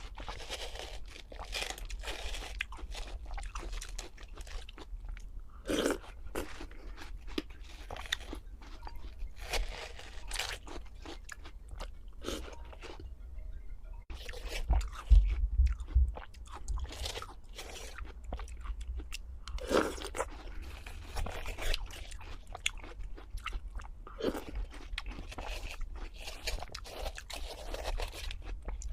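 Close-miked crunchy biting and chewing of food, with irregular crackling crunches throughout and a few louder bites.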